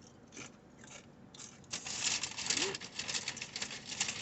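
Paper food wrapper or bag being rustled and crinkled as it is handled, starting with a few soft clicks and building into a dense run of crackling about two seconds in.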